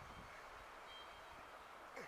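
Near silence: faint outdoor background, with one brief, thin high peep about halfway through.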